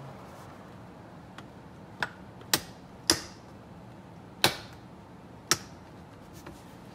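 Plastic automotive trim clips on a Tesla Model S glove box trim panel snapping loose as the panel is pulled off: five sharp snaps at uneven intervals, starting about two seconds in, the first one lighter.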